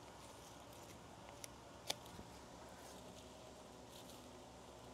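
Near silence broken by a few faint sharp clicks, the clearest a little under two seconds in: pruning shears snipping spent seed heads off canna lilies.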